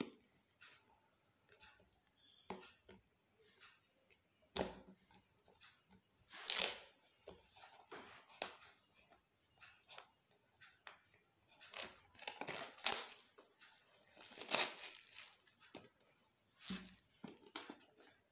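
Clear plastic shrink-wrap being torn and peeled off a small cardboard smartwatch box, crinkling in short bursts with clicks and scrapes from the box being handled. The tearing gets busier and louder in the second half.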